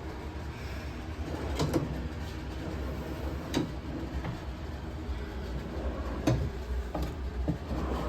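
A handful of short, sharp knocks and clicks at irregular intervals over a steady low hum.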